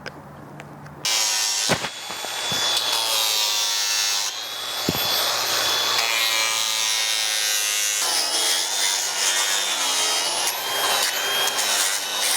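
A handheld power tool starts abruptly about a second in and grinds away at a polyurethane glue-on horseshoe, shaping the bevel on its toe. Its motor pitch wavers as it bites into the plastic.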